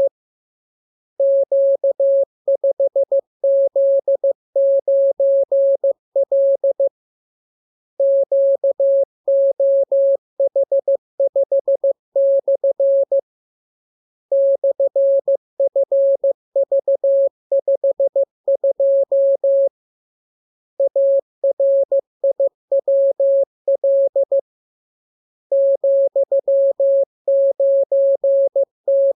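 Morse code audio tone, a single steady pitch keyed in dots and dashes. It sends groups of characters, with pauses of about a second between groups.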